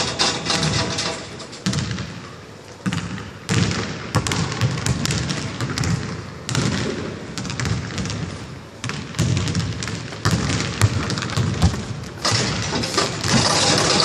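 Basketball bouncing on a hardwood gym floor: a run of separate thuds at irregular spacing.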